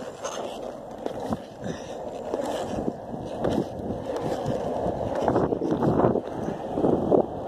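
Skateboard wheels rolling over rough pavement: a steady rumble that grows louder in the last couple of seconds, with a few sharp clicks along the way.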